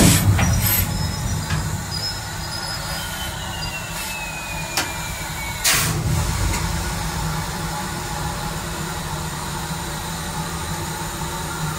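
Steam locomotive running, heard from the footplate: a steady low rumble from the engine and wheels, broken by a few sharp knocks, the loudest right at the start and another a little before the middle. A faint squeal falls slowly in pitch for a couple of seconds.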